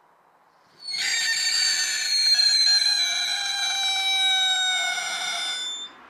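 Whistling firework going off: one loud, shrill whistle full of overtones that starts about a second in, slides slowly down in pitch and stops abruptly about five seconds later.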